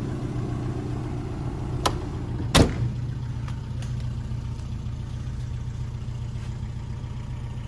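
Classic Mini's engine idling with a steady low hum. Two sharp clicks cut through it, the louder about two and a half seconds in.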